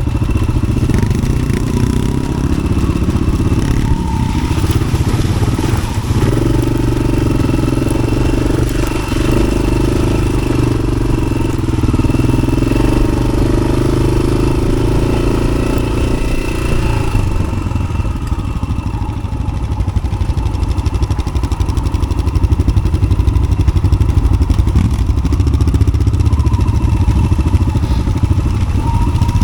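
Yamaha XT600 single-cylinder four-stroke engine running under way through an Arrow exhaust, a steady low beat, with a stronger, fuller note from about six to seventeen seconds in.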